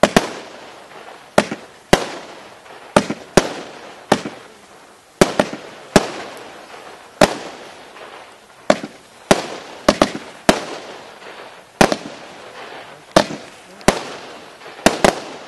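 25-shot 20 mm Category 2 firework barrage cake firing: sharp bangs at an uneven pace, roughly one every second or so, some in quick pairs (small salvos), each one fading away after the crack.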